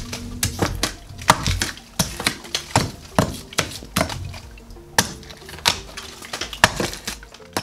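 Hammer striking a chisel to chip away stucco at the base of a window frame: sharp, irregular blows, roughly two a second, with clinks of metal and crumbling plaster.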